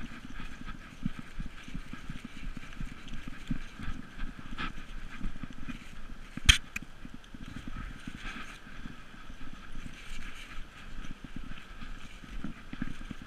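Collar-mounted GoPro jostled by a running Irish wolfhound: a steady run of dull thumps from its paw falls and the camera bouncing on the collar, with one sharp knock about six and a half seconds in.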